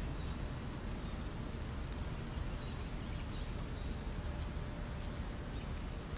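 Autumn woodland ambience: a steady wash of wind noise, heaviest in the low end, with a few faint high chirps of small birds and light scattered ticks.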